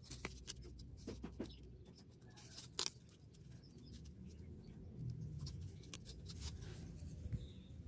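Hands handling a cardboard mould and a small plastic bottle: faint scattered clicks and taps, with a few close together about a second in and one sharper click near three seconds, over a faint low hum.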